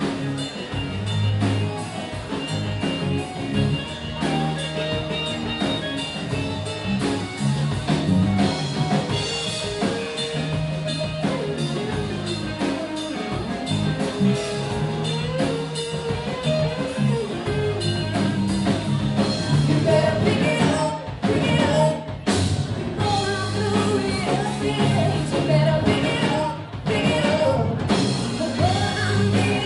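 Live rock band playing: a woman singing lead over electric guitar, bass and a drum kit, through a bar's PA. The band cuts out for a moment a few times near the middle and toward the end.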